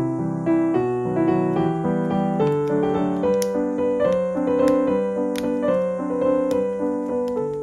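Background piano music, a gentle melody of single notes over soft chords, with a few faint clicks.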